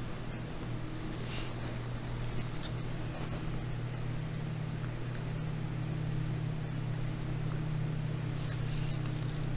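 A steady low hum of a running fan or appliance, with a few faint soft rustles and clicks from fingers pressing polymer clay around a wooden skewer.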